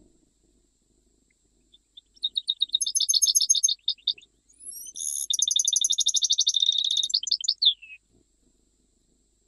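European goldfinch singing: two fast, twittering phrases of rapid high notes, the second longer and ending in a few falling notes.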